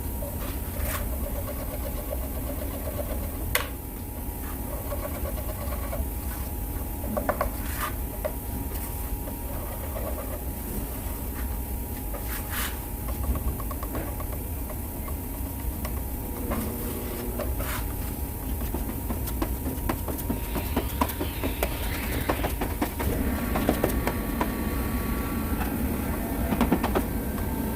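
Body filler being worked by hand on a car panel: irregular rubbing and scraping with scattered clicks, over a steady low workshop hum.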